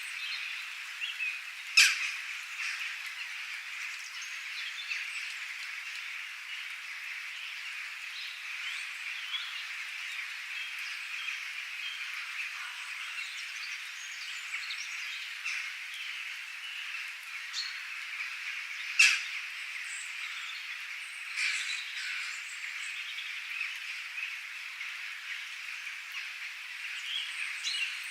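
Outdoor nature ambience of birds calling and chirping over a steady, dense chorus of high calls, with a few sharp, loud calls standing out above it.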